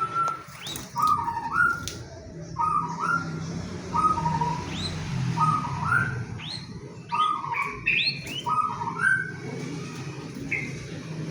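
Songbird calling: a short two-note whistle repeated about once a second, many phrases with a quick rising squeak above them.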